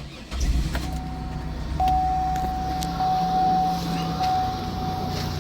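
2002 Buick LeSabre's 3.8-litre V6 starting on the first start after a fuel pump replacement, catching about a third of a second in and then running steadily.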